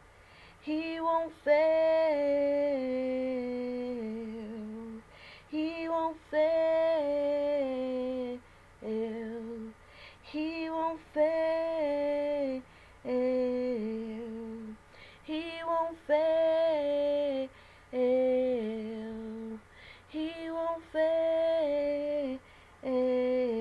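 A woman singing a worship song unaccompanied, in wordless sung phrases about one to two seconds each, with short pauses between them.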